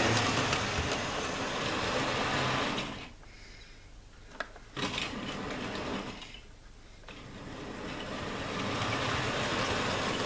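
Hornby K1 OO-gauge model locomotive's small electric motor whirring and its wheels and wagons running on the track. The sound fades about three seconds in, comes back briefly, then builds again from around seven seconds as the train returns.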